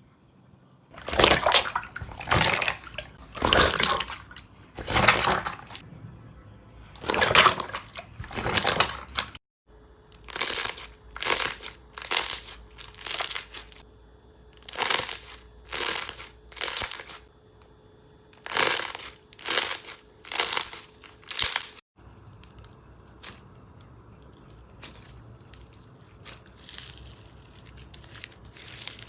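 Slime being squeezed and pressed by hand, giving a regular run of squishing sounds about one per second. In the last quarter this gives way to quieter small crackles and pops.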